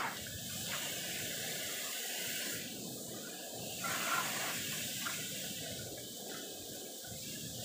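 Pressure washer spraying a jet of water, a steady hiss of spray.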